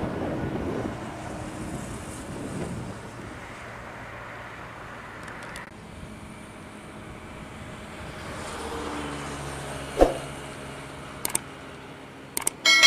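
Jet engines of an Airbus A320 passing low overhead on landing approach, a loud rush that fades over a few seconds. After a cut, a steadier low engine rumble builds, broken by a sharp click about ten seconds in.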